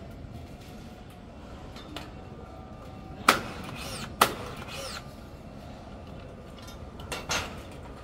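Sharp clanks of construction work at steel scaffolding and wall formwork: two loud strikes about a second apart a little past three seconds in, and a smaller double knock near the end, over a steady background hum.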